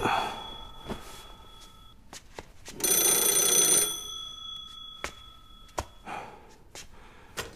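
Old-fashioned telephone bell ringing: the end of one ring fades at the start, and a second ring of about a second comes about three seconds in. A few soft knocks follow near the end.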